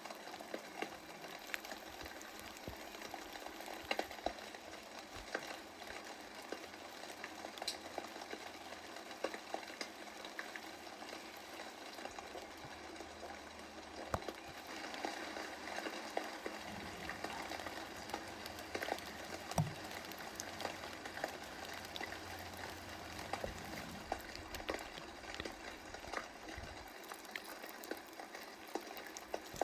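Steady rain, a soft even hiss dotted with many small scattered drop ticks.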